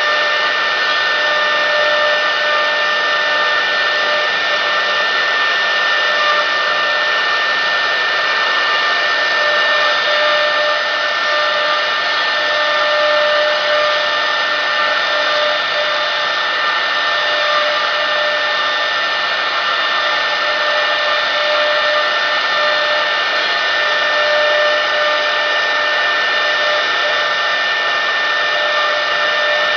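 Spindle motor of a 1325 CNC wood router with a rotary axis running steadily: a high-pitched whine over a hiss.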